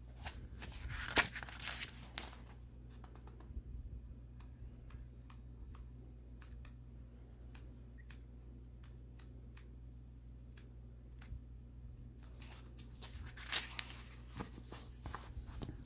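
Paper pages of a comic digest being turned by hand: rustling about a second in and again near the end, with light scattered ticks of paper in between.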